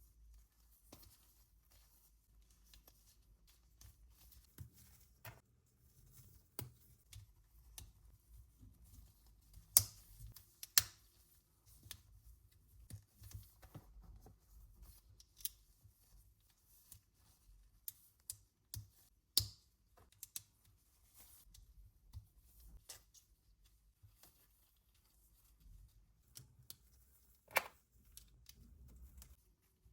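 LEGO pieces being handled and pressed together: scattered light clicks and taps with a few sharper snaps, the loudest about ten seconds in and again near the end.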